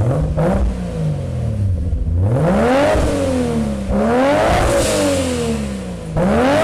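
Nissan Skyline R34 GT-R with a single-turbo HKS T04Z kit, its straight-six revving three times. Each time the pitch climbs quickly and then drops off more slowly, and a fourth rev begins near the end.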